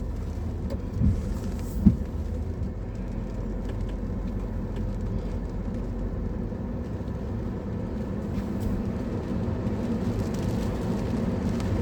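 Steady road and engine rumble of a car heard from inside the cabin while driving, with two short knocks about one and two seconds in.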